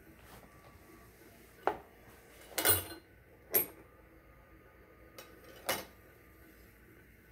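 Brass cartridge cases clinking against metal as the annealer's rotating feed drum indexes them out of the hopper and drops them through: a handful of sharp metallic clinks, the loudest a short rattle about two and a half seconds in.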